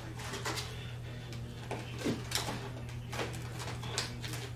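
Light handling noises of vinyl film being worked onto a model's body: scattered soft clicks, taps and crinkles, over a steady low electrical hum.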